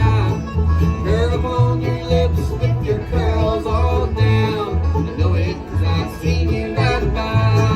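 Bluegrass band playing live: banjo and guitar picking over a bass line that alternates between two low notes in an even beat, with sliding melody notes above.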